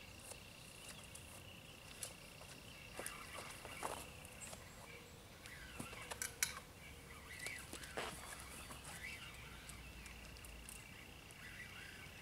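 Faint outdoor ambience: a steady high insect drone that stops a few seconds in and comes back near the end, with short bird chirps and scattered sharp clicks.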